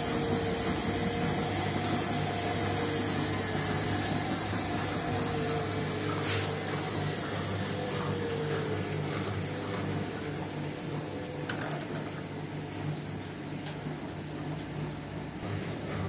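Indesit front-loading washing machine turning a wet load of towels: a steady motor hum with a whine that slowly slides down in pitch. A sharp click about six seconds in and a few lighter clicks near the end.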